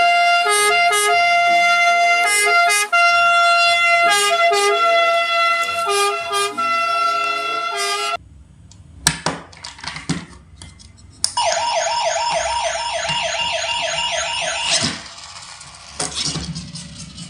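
Toy ambulance's electronic sound chip. For about eight seconds it plays a tune of steady electronic notes, then after a few clicks it sounds a fast warbling siren for about three and a half seconds.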